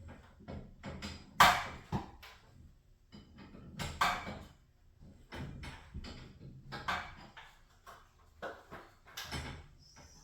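Irregular knocks and clatter from tools and garage door hardware being handled during torsion spring replacement work. The loudest knock comes about a second and a half in, with another strong one about four seconds in.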